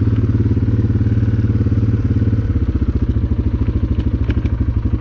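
Honda Recon 250 ATV's single-cylinder four-stroke engine running at low speed. About halfway through, its note changes to a slower, more distinct chugging pulse.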